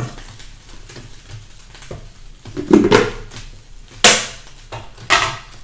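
Kitchen cookware and containers being handled at the stove: three short clatters, about three, four and five seconds in, the middle one the loudest.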